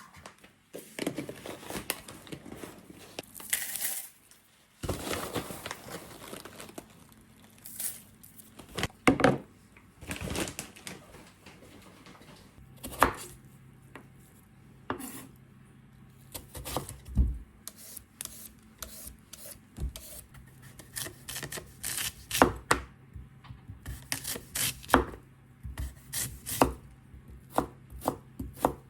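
Kitchen knife cutting food on a cutting board in irregular strokes, mixed with short scrapes and clatter of handling ingredients. A faint steady low hum comes in partway through.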